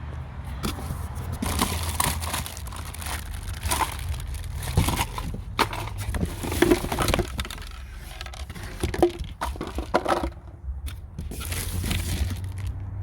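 Irregular rustling, crinkling and knocking of things being handled, over a low steady hum.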